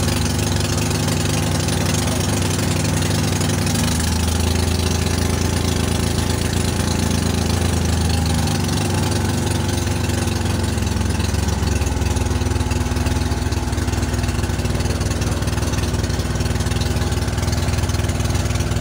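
Fishing boat's engine running steadily, its note shifting a few times partway through.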